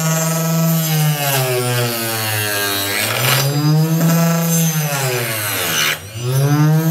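Homemade table saw driven by a 12 V 775 DC motor cutting a strip of heavy wood. The blade's whine drops in pitch as the motor slows under the cut, picks back up about three seconds in, and slows again through a second pass. Just before the end it dips briefly and then speeds back up.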